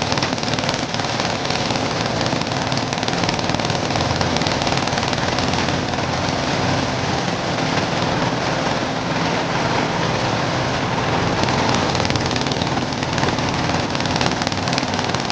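Corn sheller driven by a Dongfeng single-cylinder diesel engine, running steadily at working speed while shelling corn, with a dense rattling clatter of cobs and kernels over the engine.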